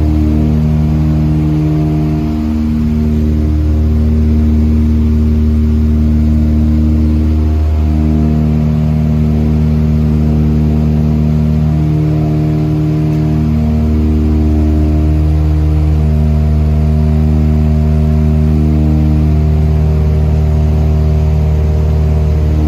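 Britten-Norman Islander's two piston engines and propellers droning steadily in cruise, heard inside the cockpit. The two engines run slightly out of step, so the tone swells and fades in a slow beat every few seconds.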